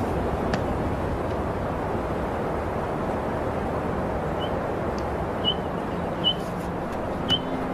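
Outdoor wild ambience: a steady rushing noise, with a bird's short high chirps about once a second starting about halfway through.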